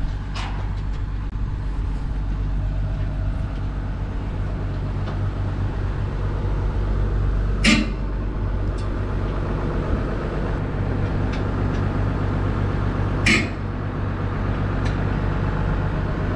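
Diesel engine of a 22-ton JCB JS220 crawler excavator running steadily with a low hum. Two brief sharp noises come through it, about five and a half seconds apart.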